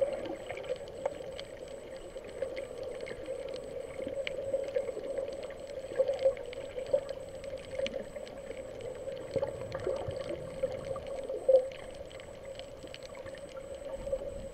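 Underwater sound picked up by a camera held below the surface over a coral reef: a steady hum with many small scattered clicks and crackles. A few louder swells of water noise come near the start, around the middle and about three quarters through.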